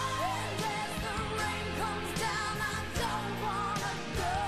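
Late-1980s pop-rock song with a full band: drums hitting about every 0.7 s over steady bass and chords, with a wavering lead melody on top.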